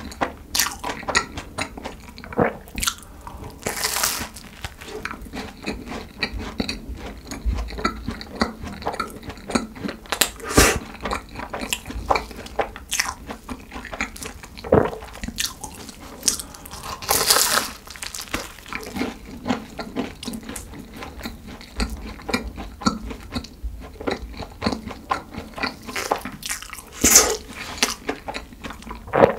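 Close-miked chewing of a cream-filled croissant: the flaky pastry crackles and crunches with wet mouth sounds between, and several louder crunching bites stand out along the way.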